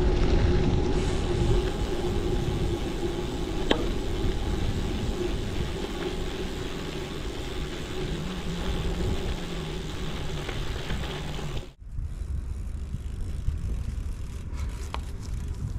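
Rondo Ruut AL1 gravel bike rolling at speed: steady tyre hum and rumble with wind on the microphone. It cuts off sharply about twelve seconds in, and a much quieter stretch with a single click follows.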